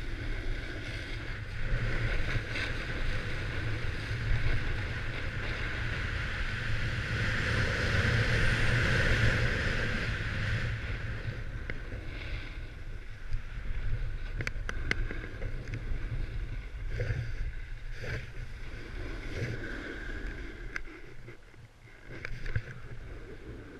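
Edges scraping and hissing over groomed snow during a fast downhill run, with wind rumbling on the camera's microphone. Loudest about eight to ten seconds in, then easing off, with a few sharp clicks as the run slows near the end.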